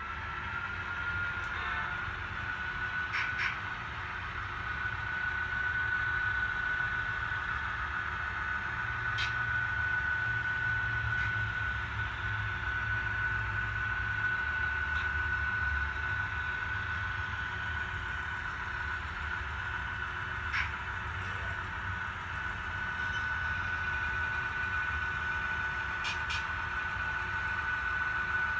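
HO-scale BNSF model diesel locomotives rolling past with a low engine rumble and a steady high whine that rises slightly at first and then holds, with a few light clicks along the way.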